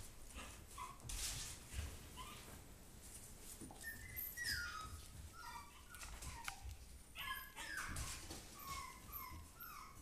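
Westie puppy whimpering: a run of short, high whines, each falling in pitch, starting about four seconds in, after a few soft knocks.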